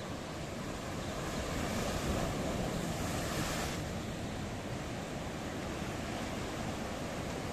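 Sea waves breaking and washing over shoreline rocks, with wind buffeting the microphone. About two seconds in, a wave surges louder and hisses, then dies back just before four seconds.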